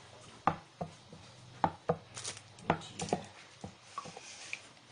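A utensil knocking and tapping against a container in short, sharp strokes while runny, failed slime is stirred with activator.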